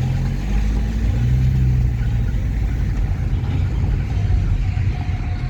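A road vehicle running with a steady low rumble.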